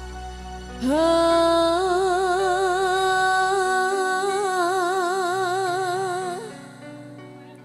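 A woman singing one long held note with vibrato into a microphone, sliding up into it about a second in and holding it for about five seconds before it fades, over a sparse live dangdut band accompaniment of steady low tones.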